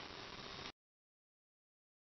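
Near silence: faint room tone that drops out to dead silence under a second in.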